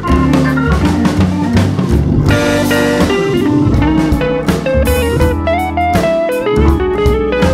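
Background music: a blues-style track with a guitar melody over a drum kit beat.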